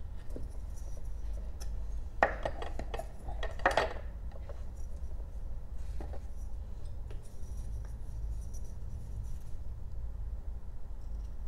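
Whittling knife cutting and scraping a small basswood block, in short clicks and scratches. The sharpest, densest run of cuts comes about two to four seconds in, with lighter scraping later.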